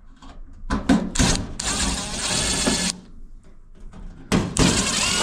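A small handheld power driver whirring in two runs of about a second and a half each, with clicks and knocks just before each run.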